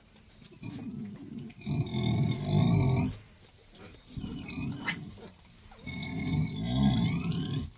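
A farrowing sow grunting in four drawn-out, deep bouts, the loudest about two seconds in, as she labours to push out a piglet.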